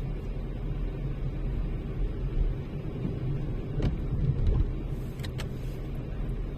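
Steady low rumble of a car on the move, with a few short clicks about four and five seconds in.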